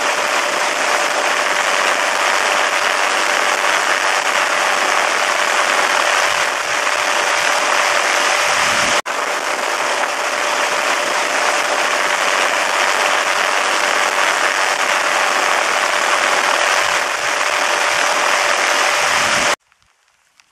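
Lava fountains erupting, a recorded eruption sound dubbed onto silent film: a loud, steady, dense rushing noise. It breaks for an instant about nine seconds in and cuts off suddenly about a second before the end.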